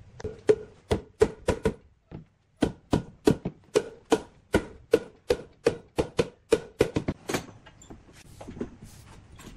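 Mallet knocking on wood, about twenty sharp strikes at two to three a second with a short pause about two seconds in, driving a frame's tenons home into a solid-wood bed post's mortises. The strikes stop about seven seconds in.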